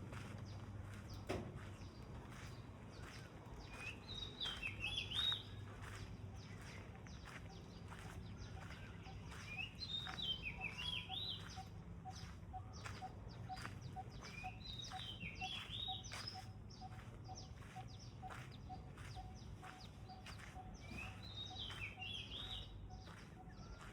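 A songbird singing a short phrase of several quick notes, repeated five times at about five- to six-second intervals, over a low steady hum and faint regular ticks.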